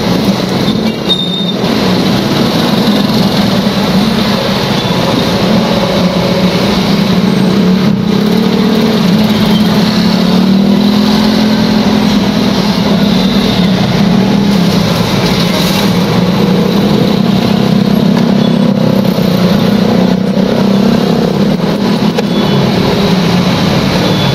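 Dense road traffic in a slow jam: many motor scooter engines and other vehicles running close by, a loud, steady engine drone.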